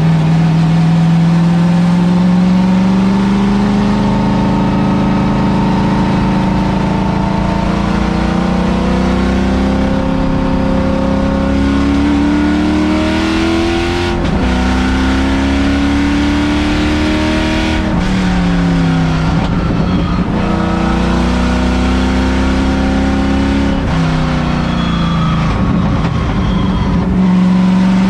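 A Miata's swapped LS3 6.2-litre V8 heard from inside the stripped race-car cabin, pulling hard on track. Its pitch climbs steadily, drops sharply about halfway through, and falls away twice more later before rising again.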